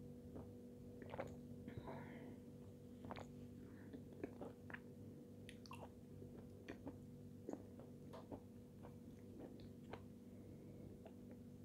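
Faint close-up mouth sounds of someone sipping a drink from a glass cup and chewing: scattered soft clicks and smacks. A steady low hum runs underneath.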